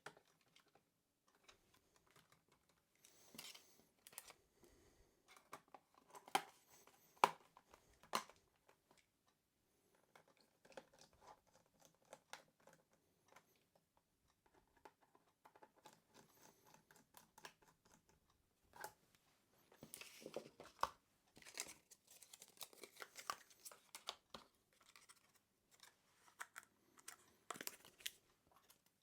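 Scattered small clicks, scrapes and rustles of hands working on a laptop's plastic case, busier a few seconds in and again past the middle.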